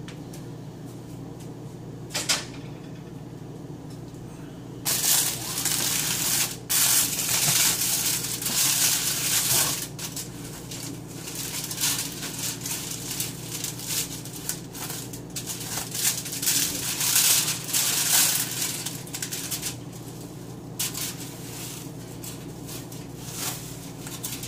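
Plastic cling wrap crinkling and rustling in irregular bursts as a raw lamb leg is unwrapped by hand, busiest from about five seconds in until about twenty seconds in, over a steady low hum.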